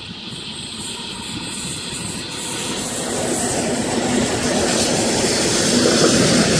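A 4-car Oscar H-set electric multiple unit approaching along the line, its rumble growing steadily louder as it nears.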